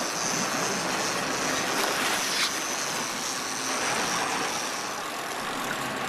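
Fishing boat's engine running steadily under wind and water noise, with a thin high-pitched whine over it that stops about five seconds in.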